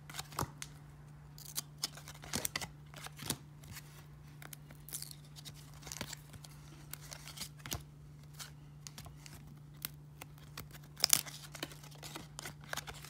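1994 Topps baseball cards flipped through by hand: scattered flicks and short scrapes of card stock sliding against card stock, the loudest cluster about eleven seconds in. A steady low hum runs underneath.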